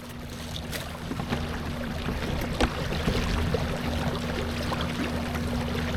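Boat under way: a steady motor hum with water rushing and splashing against the hull, fading in over the first second.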